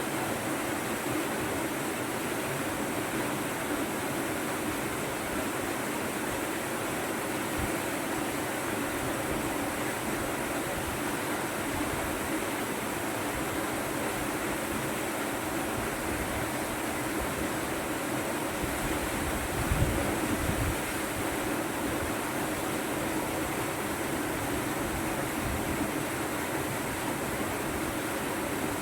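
Waterfall's water rushing steadily as a constant even noise, with a brief low rumble about two-thirds of the way through.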